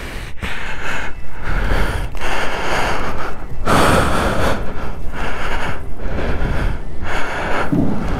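A person breathing hard and fast, with loud gasping breaths about once a second, shaken after a motorcycle fall or near-crash. A steady low rumble runs underneath.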